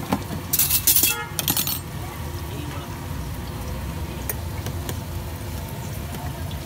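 Roadside street-stall ambience with a steady low traffic rumble. Between about half a second and two seconds in come a few sharp clattering bursts, like a steel plate and spoon, and a short horn-like toot.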